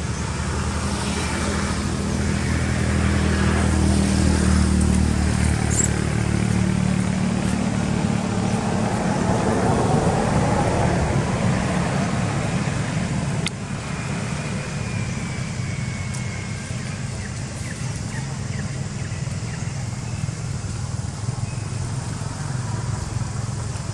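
A motor vehicle's engine running with a steady low hum, growing louder for the first several seconds and easing off after about ten seconds. There is a single sharp click about halfway through.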